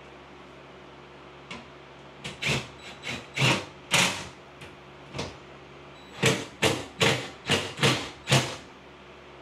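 Sheet-metal cover being fitted onto a small electrical breaker box: a string of sharp metallic knocks, irregular at first, then a quick run of about six knocks, roughly two a second.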